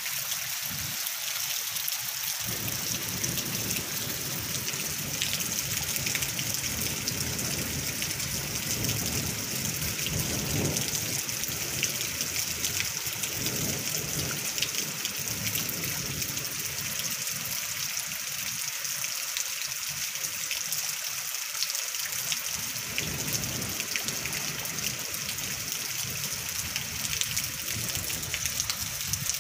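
Heavy rain falling steadily: a dense hiss of drops with many small taps. A low rumble swells and fades under it in the first half.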